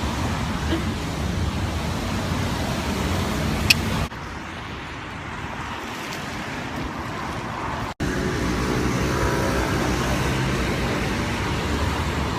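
Street traffic noise: a steady rumble of passing road vehicles. It changes abruptly about four seconds in and again, after a brief dropout, about eight seconds in.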